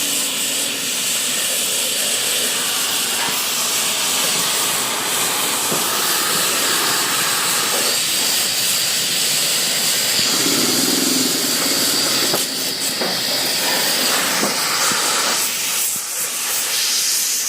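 A loud, steady hiss from metalwork on a metal deer figure. A faint high whistle sits over it through the middle stretch, and a brief low hum comes in about ten seconds in.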